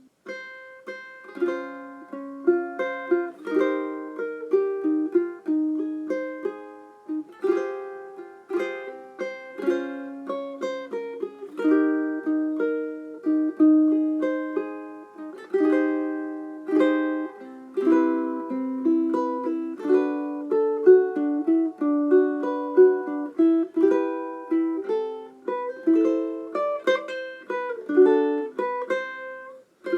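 Seilen SLTS-830GS tenor ukulele, with Brazilian rosewood back and sides and a German spruce top, played solo: a melody of plucked single notes and chords, each ringing and fading. The playing breaks off for a moment near the end, then goes on.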